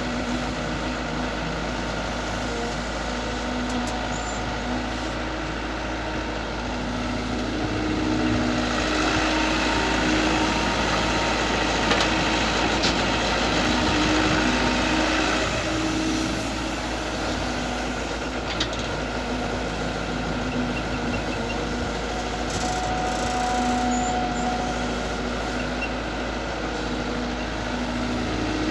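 An IHI IS120GX long-arm excavator's diesel engine running steadily. It gets louder from about eight seconds in until about sixteen seconds in, then settles back.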